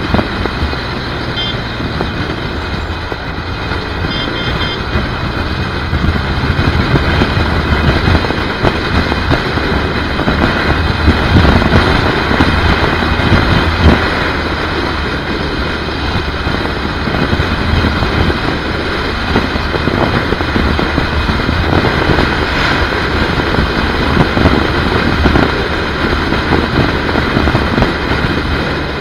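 A BMW R1200GS motorcycle riding at highway speed: steady wind and road rush on the microphone with the bike's boxer-twin engine humming underneath, among passing highway traffic.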